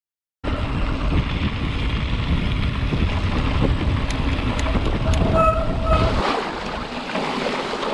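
Wind buffeting the microphone and mountain-bike tyres rolling over a dirt and gravel trail, a steady rumbling noise that starts abruptly about half a second in. The low rumble drops away about six seconds in, and there are two short squeaks shortly before.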